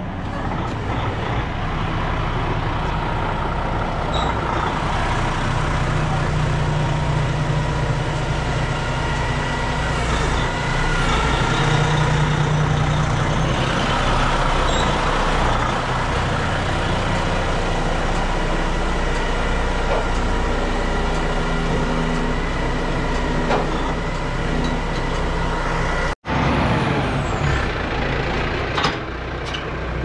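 Large diesel crane truck's engine running steadily.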